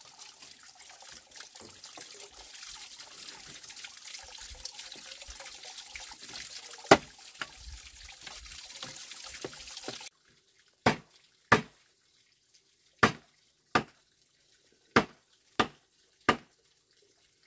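Water running steadily with small clicks and one sharp knock; about ten seconds in it stops suddenly, and seven sharp knocks follow, roughly in pairs.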